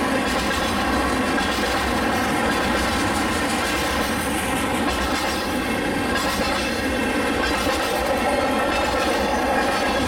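Freight train tank cars rolling past, with steady wheel-on-rail noise. A faint, steady whine of several tones runs over it.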